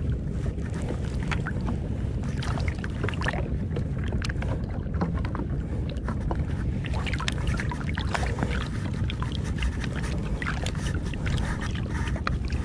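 Choppy sea water lapping and splashing close around a wading angler: irregular small splashes over a steady low rumble.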